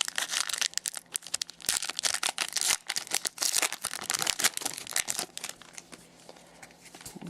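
Trading card pack wrapper crinkling and tearing as a hockey card pack is opened and handled, a dense run of crackles that thins out and goes quieter about five and a half seconds in.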